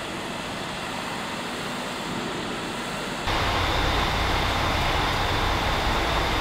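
Steady industrial background noise of a truck assembly hall: a dense hiss and low rumble with no distinct knocks or tool strokes. It jumps louder about three seconds in, and a faint steady high whine comes in with it.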